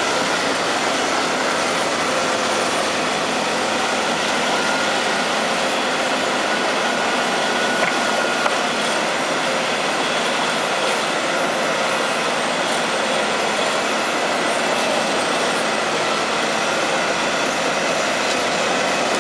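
Diesel engines and hydraulics of a Volvo EC240C crawler excavator and a Caterpillar wheel loader running steadily while the excavator dumps soil into the loader's bucket, with one brief knock about eight seconds in.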